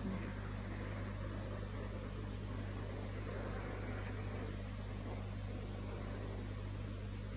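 Steady hiss and low mains hum from an old recording during a pause in the recitation, with no voice.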